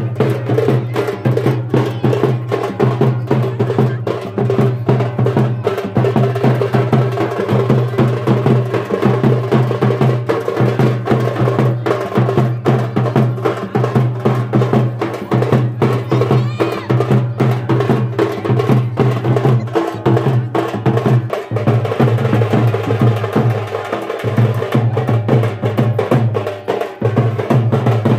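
Double-headed barrel drum played by hand in a fast, driving dance rhythm, sharp slaps over a steady deep beat.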